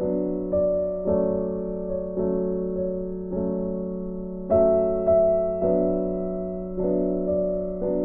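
Background piano music: chords struck one after another, each left to fade before the next, about one every half second to a second. The loudest chord comes about four and a half seconds in.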